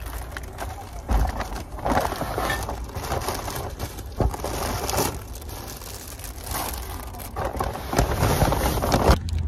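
Irregular rustling and crinkling handling noise with scattered sharp knocks and clicks.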